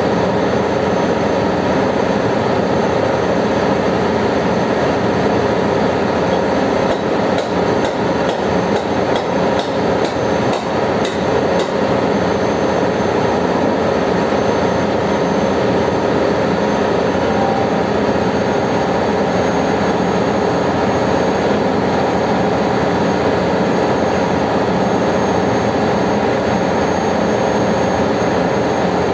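Steady engine-room machinery drone. About seven seconds in comes a quick run of about a dozen sharp metallic taps, a little over two a second, from hand tools on the bowl parts of an Alfa Laval purifier being dismantled.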